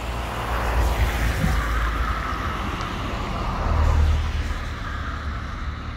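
Road traffic: a passing vehicle's rumble and tyre noise, swelling to its loudest about four seconds in.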